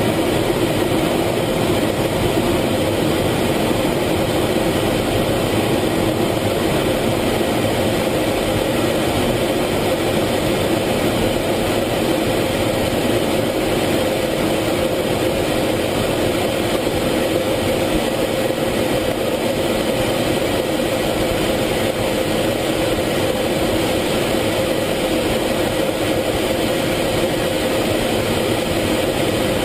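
F-16 fighter jet in flight, heard inside the cockpit: a steady, loud mix of jet engine and airflow noise under the canopy, with a constant hum at two fixed pitches and no change in level.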